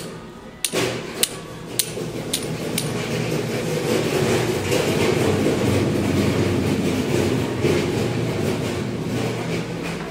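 A hand tapping ceramic tile samples on a store shelf: five sharp, ringing knocks about half a second apart, then a louder, steady scraping noise for the rest of the time.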